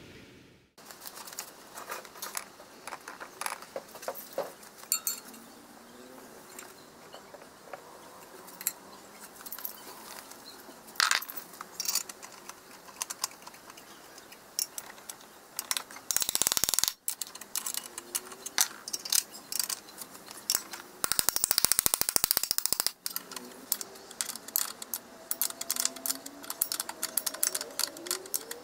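Steel bolts and spanners clinking and tapping against the steel flange plates of the poles as bolts are set and tightened by hand: an irregular string of sharp metallic clicks, with a dense rattle a little past the middle and a fast run of clicks about three quarters of the way through.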